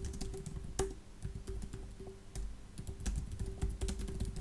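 Typing on a computer keyboard: a quick, uneven run of key clicks, with one louder keystroke about a second in.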